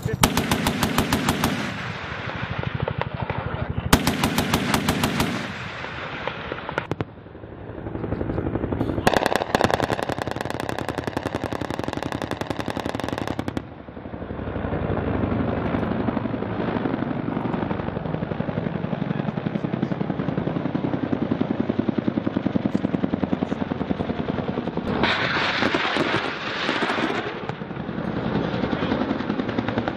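Bursts of rapid automatic fire from an AH-1Z Viper attack helicopter's 20 mm three-barrel rotary cannon: three bursts of a few seconds each in the first half, then near-continuous firing, loudest a few seconds before the end.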